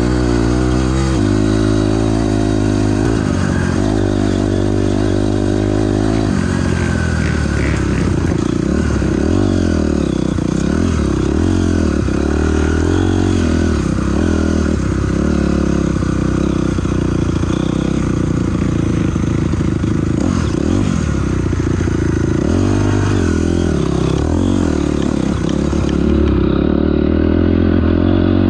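2006 Honda CRF250R single-cylinder four-stroke dirt bike engine being ridden hard, its pitch rising and falling again and again with the throttle.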